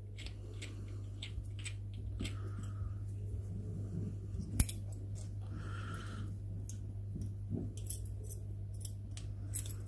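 Steel eyebolt being turned out of a neodymium fishing magnet and threaded back in by hand: light metallic clicks and scraping of the threads, with one sharp metal click about four and a half seconds in, over a steady low hum.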